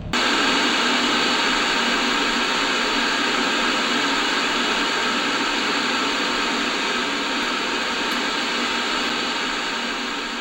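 Analog television static: a loud, steady hiss from an old TV set receiving no signal. It cuts in suddenly and slowly dies down near the end.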